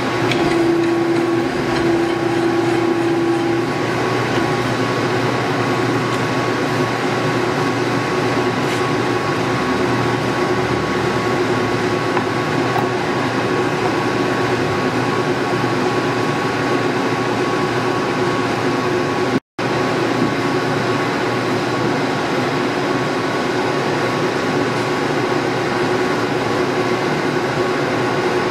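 Warner & Swasey No. 4A square-head turret lathe running under power, its spindle and gearing giving a steady mechanical hum with a few held tones. An extra tone sounds for the first few seconds, and the sound cuts out for an instant about two-thirds of the way through.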